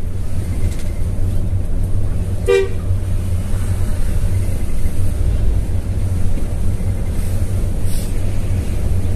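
Intercity bus running on the road, heard from inside the cab: a steady low rumble of engine and road noise. A single short horn toot sounds about two and a half seconds in.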